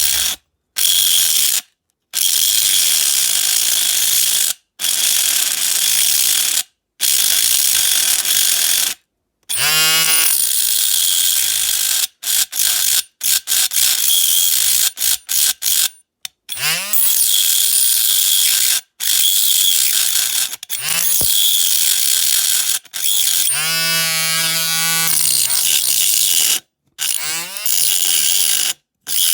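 A small high-speed rotary cutting tool grinding through the diecast metal body of a model car, cutting off its front wings: a steady high-pitched hiss in stretches that stop suddenly, with the motor's whine falling and rising in pitch between cuts.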